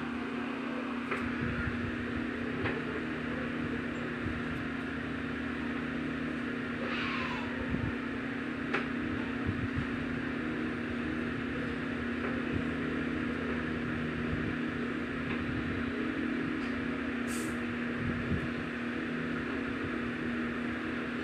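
Electric fan running with a steady hum and whir, with a few faint light ticks over it.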